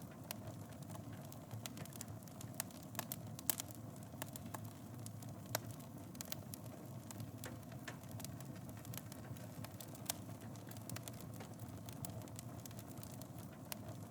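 Wood fire burning in a fireplace: a steady low rumble of flames under irregular sharp crackles and pops, a few a second, with a couple of louder pops.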